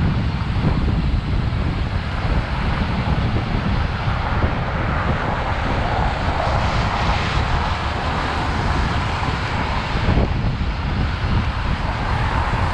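Wind rushing and buffeting over a GoPro action camera's microphone on a moving bicycle, mixed with steady road noise.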